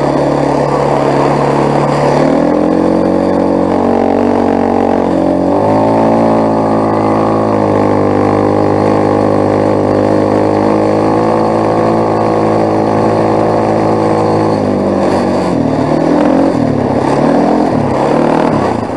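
Quad bike (ATV) engine running under load while towing a train of sleds through snow. Its pitch steps up about two seconds in and again about six seconds in, holds steady, then drops about fifteen seconds in and revs up and down near the end as the quad swings round.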